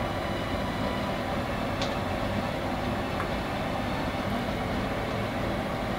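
Steady mechanical hum and rush of kitchen background noise, with one faint light tap about two seconds in.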